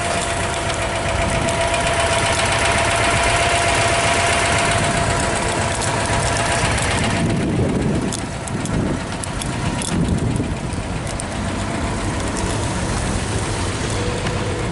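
Citroën 2CV's air-cooled flat-twin engine idling steadily. A brighter hiss over it drops away about halfway through, leaving the lower running sound.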